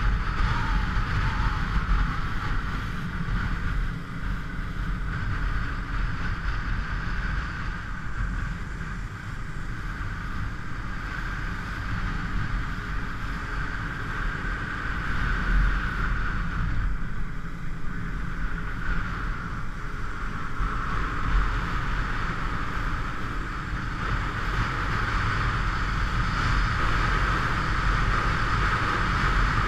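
Motorcycle riding at steady speed: wind rushing over the camera's microphone, with the engine and road noise underneath. It grows a little louder over the last few seconds.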